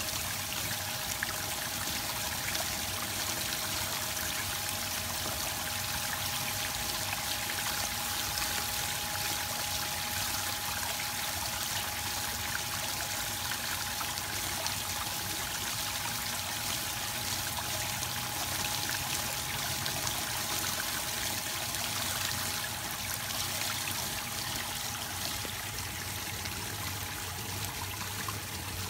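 Steady trickling of running water from a small garden pond, unbroken throughout, with a faint steady hum underneath.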